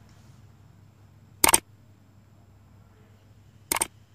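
Two sharp mouse-click sound effects from an animated subscribe-and-bell button overlay, about two seconds apart, each a quick double click. A faint steady low hum lies between them.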